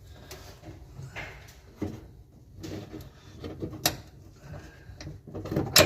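Scattered clicks and knocks of hands working the tail light bulb sockets and wiring loose from the housing, with a sharp click about four seconds in and a louder clatter near the end.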